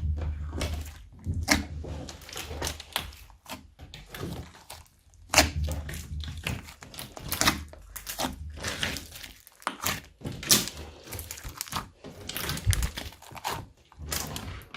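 Slime being mixed by hand: irregular sticky clicks, pops and crackles, some with a soft thud.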